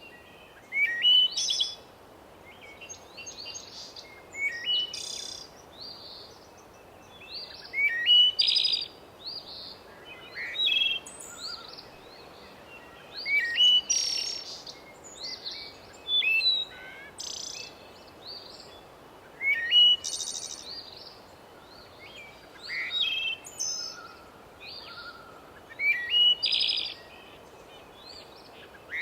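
Forest songbirds singing short, bright, warbling phrases every couple of seconds, over a steady faint hiss.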